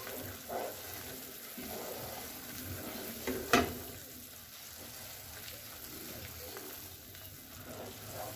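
Wooden spoon stirring thick watermelon halwa round a nonstick pan, with faint sizzling. The halwa is at its finished stage, pulling away from the pan as one mass instead of sticking. A single sharp tap about three and a half seconds in.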